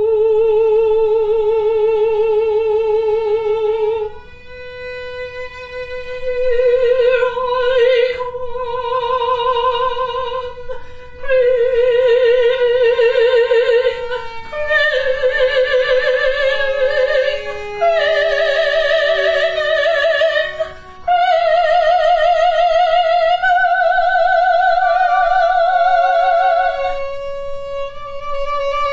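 Operatic soprano singing long, held notes with wide vibrato in several phrases, with brief breaks between them, as a violin plays a sustained line alongside.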